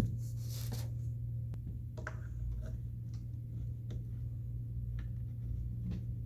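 Small screws being driven into a plastic toy dollhouse piece by hand, with irregular faint clicks and ticks of plastic, and one sharp click at the very start. A steady low hum runs underneath.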